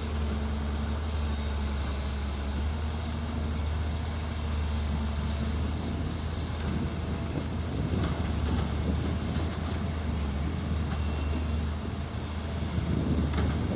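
Excavator's diesel engine running with a steady low hum; about halfway through its even tone gives way to rougher, uneven noise.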